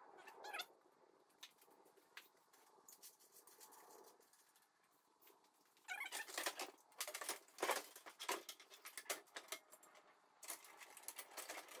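Faint clicks, taps and scrapes of a Model T door's hinge hardware and sheet metal being handled, with a few short squeaks at the start. It is quiet for a few seconds, then from about six seconds in comes a busier run of knocks and clinks.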